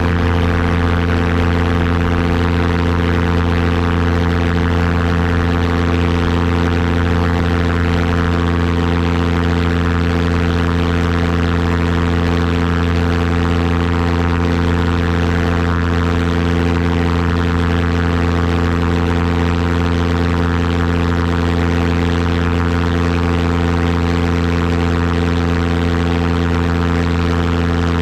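Engine running steadily at a constant speed: one unchanging low note with many overtones, with no revving.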